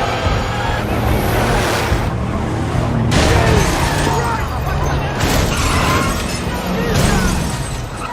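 Action-film car-chase sound mix: car engines with several sudden crashes and breaking glass, over music.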